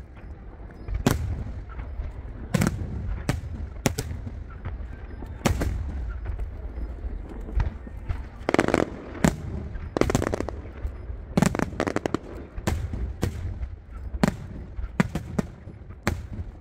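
Aerial fireworks going off: sharp booming bursts at irregular intervals, roughly one a second, each with a short echoing tail, over a steady low rumble.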